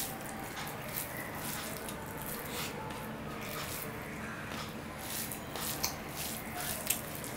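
Wet squishing and clicking of eating by hand: fingers kneading rice with chana dal and curry on a steel plate, together with chewing. The sounds come as irregular short smacks, with two sharper ones near the end.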